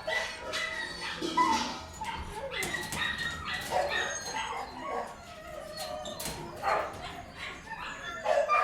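Many dogs in a kennel barking and yelping over one another without a break, with some whimpering among them.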